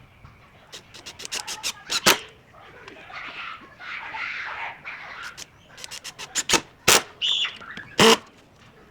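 A run of sharp clicks and knocks with a rustling scrape in between, ending in one loud knock: metal hardware being handled and fitted while a wrought-iron plant hanger bracket is screwed to a wooden beam.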